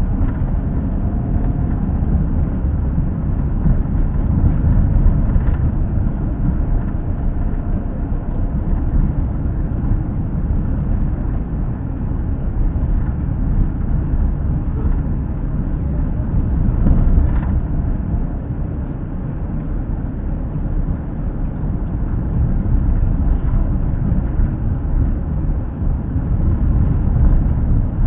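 A steady low rumble with a fainter hiss above it, the running noise of a moving vehicle picked up by an action camera's built-in microphone.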